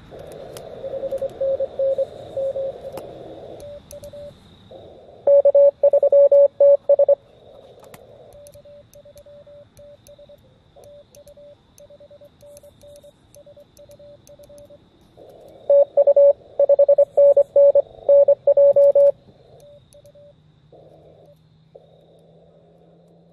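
Morse code (CW) tones from an Elecraft KX2 transceiver on the 40-meter band, a single pitch keyed on and off with band hiss behind it. Two stretches of keying, about five and sixteen seconds in, are much louder than the rest.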